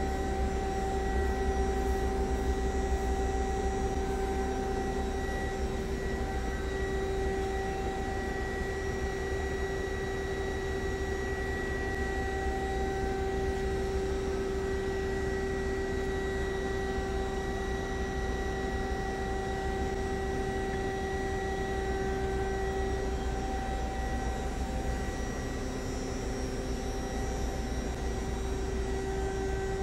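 Steady hum of a powered-up CNC lathe standing idle: a few constant whining tones over a low rumble, with no change throughout.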